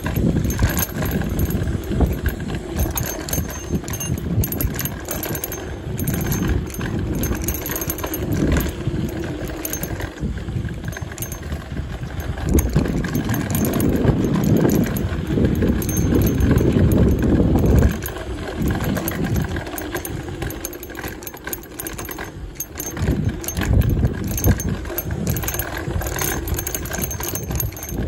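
Mountain bike riding down a dirt trail: tyres rolling and crunching over the dirt, with the bike rattling and knocking over bumps. It gets louder and rougher from about twelve to eighteen seconds in.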